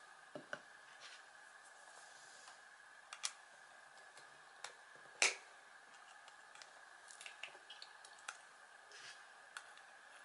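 Scattered small clicks and taps as needle-nose pliers and fingers work at the metal casing of a small AC gear motor, with one sharper click about five seconds in.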